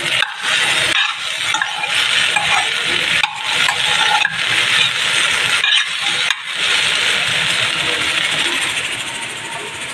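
Chopped okra frying in a stainless-steel pan, sizzling steadily, while a metal spoon stirs it, scraping and clinking against the pan every so often.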